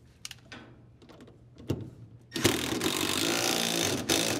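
Cordless power driver with a 14 mm socket spinning the nut down onto the washer drive motor's shaft, seating the belt pulley. It runs steadily for about a second and a half, starting a little past halfway, after a few light clicks of the socket being fitted.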